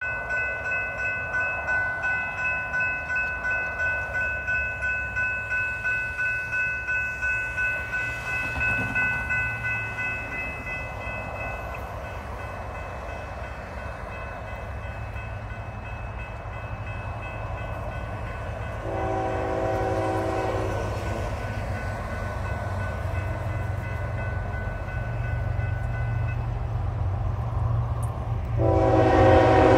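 Railroad crossing bell ringing about twice a second, fading out about twelve seconds in, over a low rumble. An approaching Florida East Coast locomotive sounds its horn: a short blast about two-thirds of the way through, then a longer, louder blast starting near the end.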